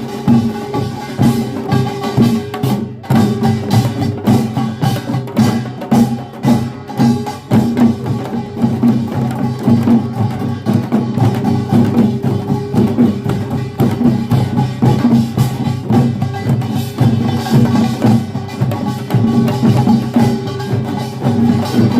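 A Korean pungmul farmers' band playing at full volume: drums and small gongs beating a dense, driving rhythm over a steady ringing tone.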